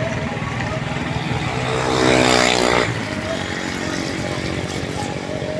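A small engine runs steadily with a fast, even pulse. About two seconds in, a vehicle passes close by, louder for under a second, its pitch falling as it goes by.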